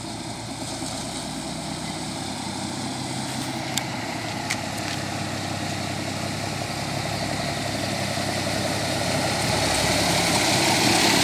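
M35A2 army truck's turbocharged multifuel diesel engine running at low revs as the truck drives slowly closer, growing steadily louder. Two brief clicks near the middle.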